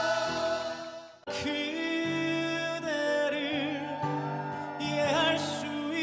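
Male voices singing with musical accompaniment. A held chord fades out about a second in, and a new sung passage with vibrato starts right after.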